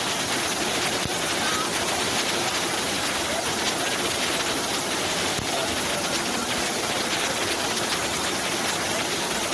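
Waterfalls pouring into a rock pool: a steady, unbroken rush of falling water.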